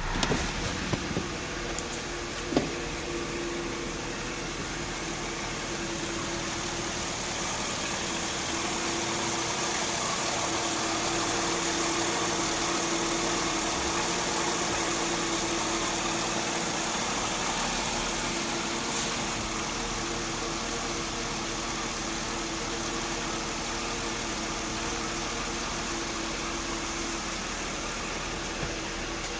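2002 Mercedes-Benz E320's 3.2-litre V6 engine idling steadily, with one brief click about two and a half seconds in.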